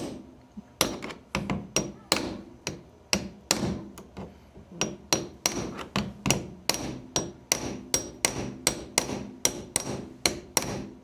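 Hammering: a steady run of quick, sharp blows, about three a second, each with a brief high ring, as the wing-window glass is tapped down into its new rubber gasket in the frame.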